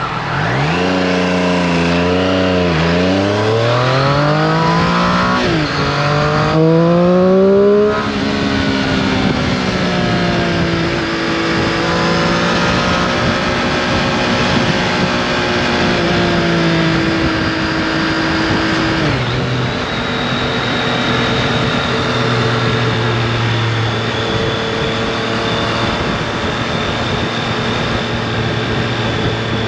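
2018 Triumph Street Triple RS's 765 cc inline-three engine heard from the rider's seat, revving up through the gears with a rising note broken by upshifts about three and five seconds in. It then cruises at a fairly steady pitch under wind rush, and the engine note drops once more about two-thirds of the way through.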